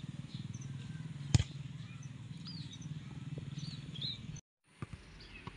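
One sharp thud of a football being kicked about a second in, over faint bird chirps and a steady low outdoor rumble. The sound drops out for a moment near the end.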